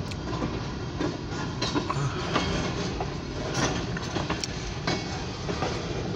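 Short freight train rolling past: steel wheels click and knock irregularly over the rail joints above a steady low rumble, heard from inside a car.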